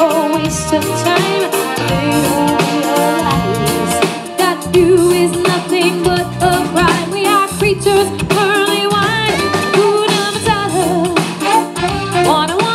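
Live band playing, with a woman singing lead into a microphone over a drum kit and band accompaniment.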